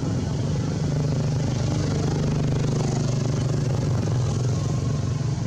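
A motor engine running steadily at idle, a continuous low hum.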